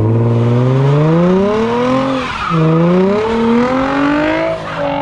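Nissan 350Z's V6 through a Tomei dual exhaust, accelerating hard: the note rises, drops at a gear shift about two and a half seconds in, rises again through the next gear, then drops as the throttle comes off near the end.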